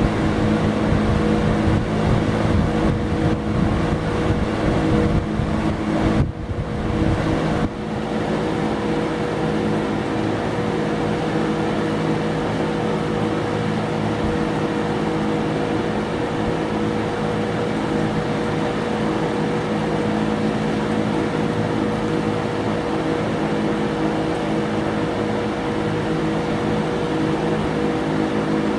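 Vintage Berns Air King PR20P 20-inch two-speed box fan running: a steady rush of air over a motor hum. Around six to eight seconds in there are two brief dips, after which the hum weakens and the fan settles slightly quieter.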